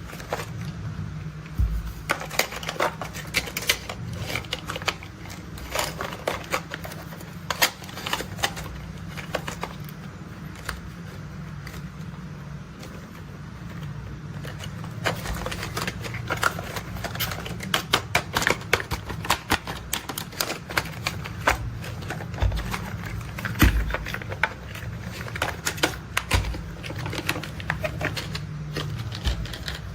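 Toy construction vehicles being handled: a dense, irregular run of small taps and clicks throughout, over a low steady rumble.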